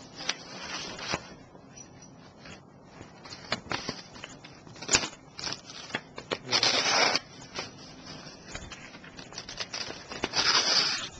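A Kershaw folding pocket knife slicing through a sheet of paper: two longer rasping cutting strokes, one just past the middle and one near the end, with paper rustling and small taps of the paper and blade between them.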